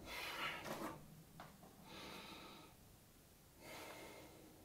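Faint rustling and crinkling of a disposable aluminium foil baking tray being handled and lifted, in a few short soft stretches.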